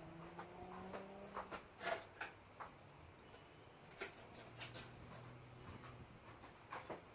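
Scattered light clicks and knocks, in a few short clusters, with a faint low hum twice; the kind of small sounds made while working on and lowering a car onto new coilover suspension.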